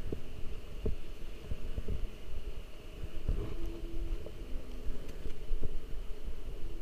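Low rumble of air movement and handling on a handheld camera's microphone while walking, with irregular soft bumps and a steady faint high hiss underneath.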